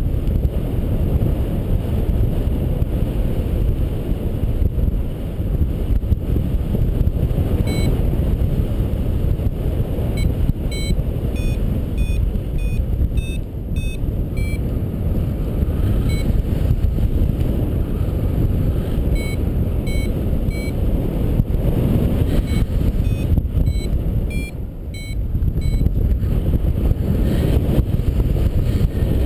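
Steady wind rush over the microphone of a paraglider in flight, with a variometer's short, regular beeps coming in about a quarter of the way in and going on and off, their pitch shifting a little: the vario's climb tone, signalling that the glider is rising in lift.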